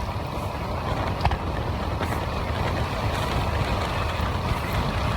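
Steady rush of wind over the microphone on a bicycle descending at about 40 to 45 mph, mixed with the tyres' road noise, with a small click about a second in.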